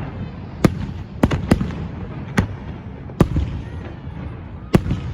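Aerial fireworks going off: about eight sharp bangs at irregular intervals, some coming in quick pairs and triples, over a continuous low rumble.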